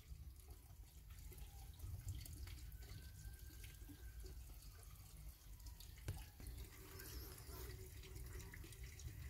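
Near silence: faint room tone with a few light clicks.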